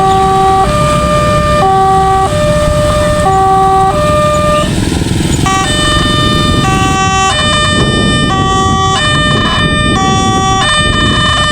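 Railway level-crossing warning siren sounding an alternating two-tone alarm that steps between pitches about every 0.7 s, over a steady low rumble. About 7 s in it becomes harsher and brighter as the same stepping alarm goes on.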